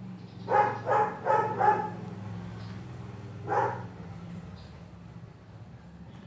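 Five short, loud animal calls: four in quick succession, then one more about three and a half seconds in. A steady low hum runs underneath.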